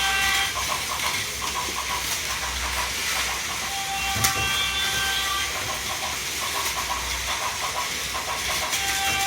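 Plarail toy trains running on plastic track with a steady whirring hiss. Over it a toy level-crossing bell rings in quick repeated strokes, and an electronic train horn sounds, a held chord of about a second and a half, ending just after the start, again about four seconds in, and near the end. A single sharp click comes about four seconds in.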